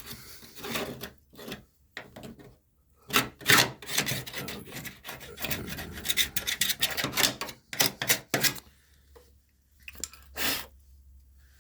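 Irregular scraping, rasping strokes on sheet metal, coming in clusters with short pauses and thinning out over the last few seconds, over a faint steady low hum.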